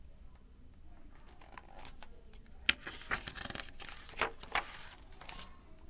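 A picture-book page being turned by hand: paper rustling and crinkling in a run of quick, sharp bursts, the loudest about three seconds in.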